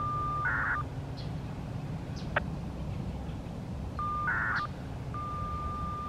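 Radio signalling tones from a radio scanner. Three times, a steady high beep ends in a short buzzy data burst, the last beep the longest. A single sharp click comes about two and a half seconds in, over a low steady hum.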